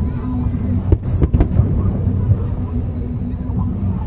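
Fireworks going off: three sharp bangs close together about a second in, over a continuous low rumble of bursts.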